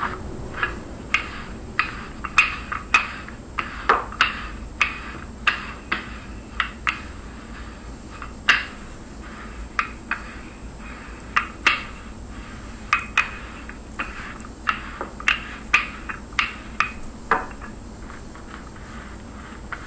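Wooden rolling pin rolling out dough on a table: a run of irregular sharp knocks and clacks, about one or two a second.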